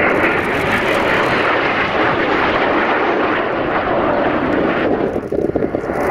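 Canadair CT-114 Tutor jet trainers flying past in formation: the steady rushing noise of their turbojet engines, which thins and wavers near the end.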